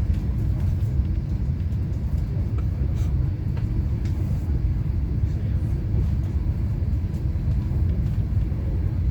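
Steady low rumble of a moving passenger train heard from inside the carriage, with a few faint ticks.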